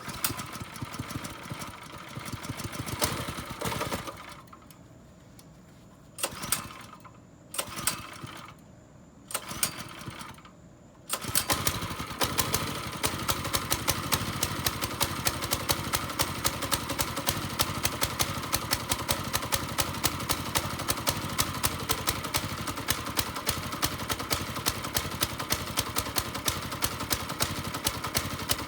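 Mini bike's small engine being started: a few short bursts as it fires and dies, then about eleven seconds in it catches and keeps running steadily with an even, rapid firing beat.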